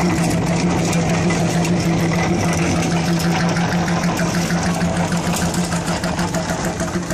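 Old stationary engine with a large flywheel running steadily, driving a geared wire-rope winch: a constant engine hum with a slight regular pulse.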